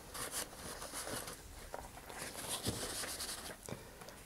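Faint rustling of a paper towel being handled and pressed against a cardboard rocket body tube, with scattered soft taps of handling on the workbench.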